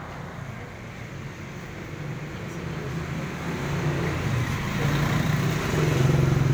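A passing road vehicle's engine, a steady low hum that grows louder from about two seconds in as it draws near.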